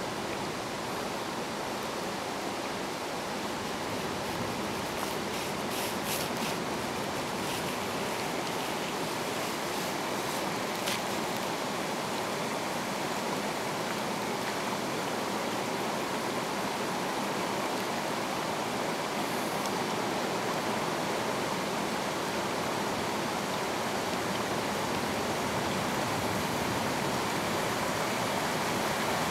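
A small stream running over rocks: a steady rush of water that grows a little louder near the end.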